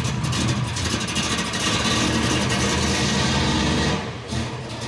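Chevrolet Nova's engine running, just caught after being hard to start.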